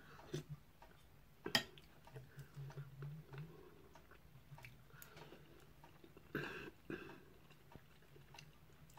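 Faint chewing and mouth sounds of someone eating vegetable soup, with light clicks of a fork and spoon against a ceramic bowl; the sharpest click comes about a second and a half in.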